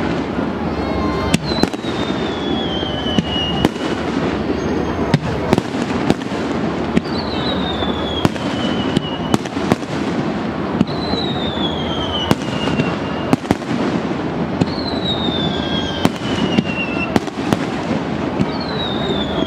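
Aerial fireworks going off in rapid succession, many sharp cracks and bangs over a steady din. About every four seconds a high whistle-like tone falls in pitch for a couple of seconds.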